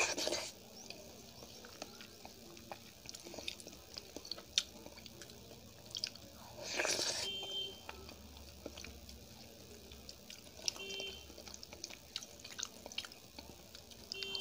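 Close-miked eating: soft wet chewing and small clicky mouth smacks of a person eating soft, moist food, with louder noisy bursts at the start and about seven seconds in.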